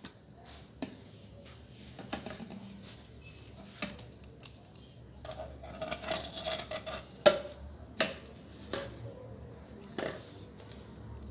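Plastic bottles and a box cutter handled on a plate: scattered knocks and clicks, with a busier stretch of scraping and rattling about halfway through as the knife works on the plastic, then a few sharp clicks.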